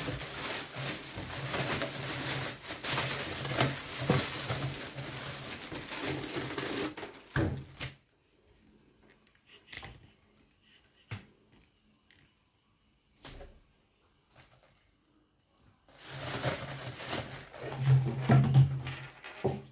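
Packaging rustling and crinkling as a new juicer blender is unwrapped and its parts handled, with small clicks and knocks. About eight seconds in the sound drops to near silence for several seconds, broken only by a few faint ticks, then the rustling and handling start again.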